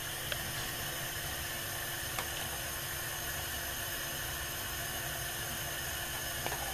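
Steady hiss with a low rumble under it, broken by a few faint taps of a spatula against an enamelled pot as spice paste is added to warming coconut milk.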